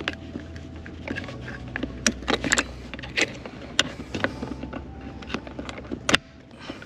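Irregular sharp metallic clicks and clinks from hand tools and hardware while the old handbrake cables are unhooked from the lever inside the car.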